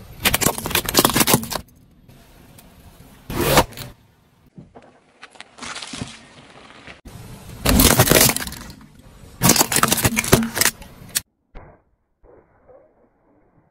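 A car tyre rolling slowly over objects and crushing them, with four loud cracking, crunching bursts, the first as plastic sunglasses snap. Quieter crackle of the tyre on grit runs between the bursts, and the sound drops to near silence shortly before the end.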